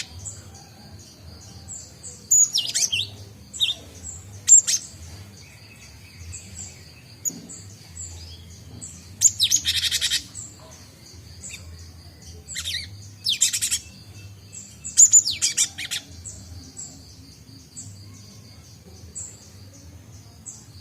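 Cinereous tits (gelatik batu) calling: loud, high, harsh chirps in short clusters every few seconds, with one longer rasping call about halfway through. Under them runs a faint, evenly repeated series of high chips.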